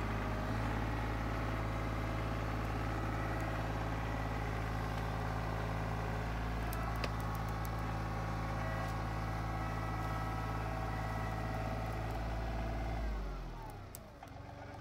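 Diesel engine of a John Deere compact tractor running steadily at high revs while its loader grapple works a log. Near the end it is throttled down, the pitch sliding to a lower, quieter idle.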